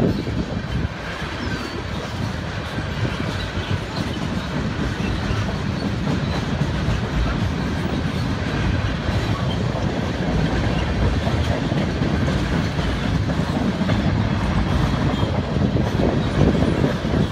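Loaded railroad tank cars of a freight oil train rolling past at nearly 60 mph: a steady rumble with wheels clicking over the rail joints.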